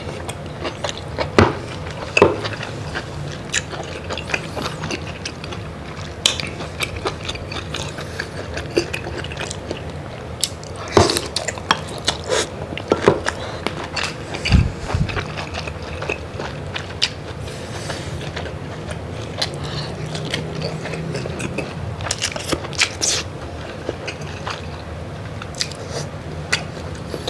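Close-up eating of tiger prawns and mud crab in sauce: chewing and biting, with many short, sharp crunches and clicks scattered throughout.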